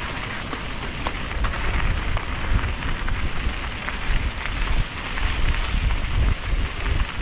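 Mountain bike tyres crunching and crackling over a loose dirt and gravel trail, with many small clicks from stones and the bike rattling. Wind buffets the microphone in a low rumble that grows heavier after about two seconds.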